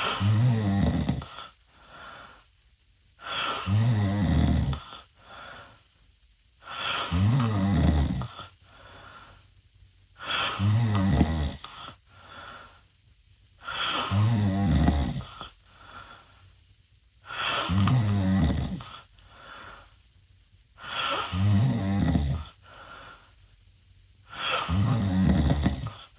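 A teenage boy snoring loudly through an open mouth. There are eight loud snores, one about every three and a half seconds, each with a quieter breath between.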